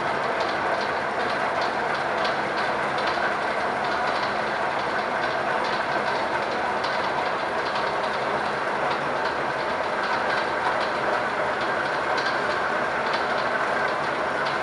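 DoAll 3612-H vertical band saw running steadily, with a regular light ticking about twice a second over the machine noise.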